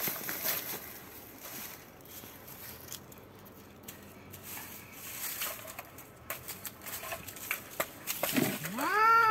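Two cats fighting: scattered scuffling and rustling of paws and bodies in dry leaves, then near the end one cat lets out a single drawn-out yowl that rises and falls in pitch.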